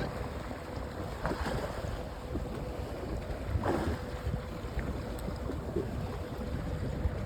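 Wind buffeting the microphone over the sound of waves on open water, with a faint steady hum and two brief swishes.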